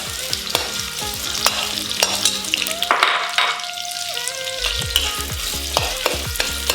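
Chopped onions sizzling and crackling in hot oil in a pan, stirred with a spatula that clicks and scrapes against the pan again and again.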